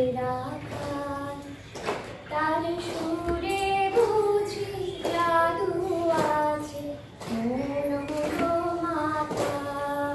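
A woman singing a slow melody in long held notes, with short pauses between phrases.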